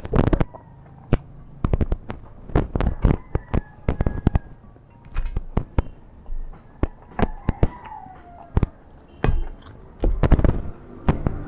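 A plastic rice paddle and dishes clattering against stainless steel bowls and plates as rice is served: an irregular run of sharp clinks and knocks.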